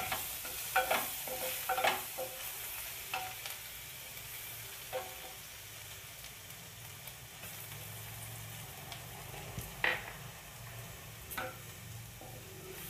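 Chopped garlic sizzling steadily in melted butter in a ceramic dish, stirred with a wooden spatula that scrapes and knocks against the dish several times, most often in the first few seconds.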